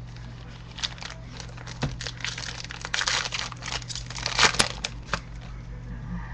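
A trading-card pack's foil wrapper crinkling as it is torn open and handled. A dense run of sharp crackles starts about a second in, is thickest in the middle and stops near the end.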